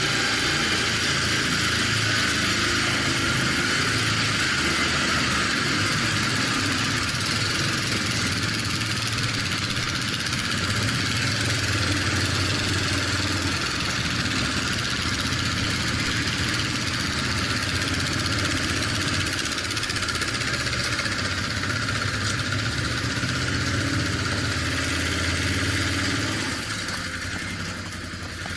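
Off-road vehicle driving, its engine running steadily under a loud, even hiss. The sound gets quieter near the end.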